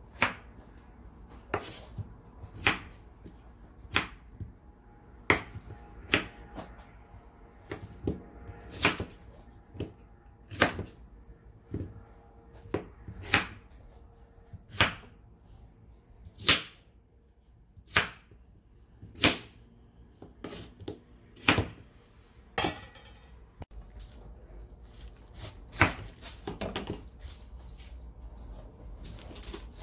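Kitchen knife cutting peeled potatoes into rough chunks on a wooden cutting board: a sharp knock each time the blade hits the board, about once a second, some twenty strokes in all. A brief scraping noise comes about two-thirds of the way through, between the strokes.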